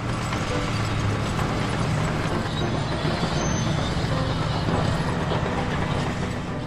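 Bulldozer engine running steadily, a loud, even low rumble with dense mechanical noise over it.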